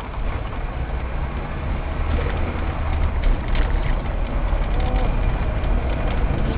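Steady low rumble of a car's engine and road noise heard from inside the cabin as the car pulls away from a stop in slow traffic, with a few faint short tones near the end.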